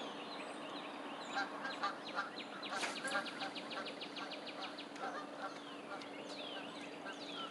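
Scattered bird calls and honks over a steady low hum, with a quick run of about fifteen rapid ticks about three seconds in.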